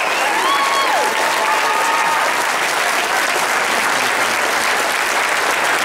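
Audience applauding: dense, steady clapping from a roomful of people, with a few voices calling out over it in the first couple of seconds.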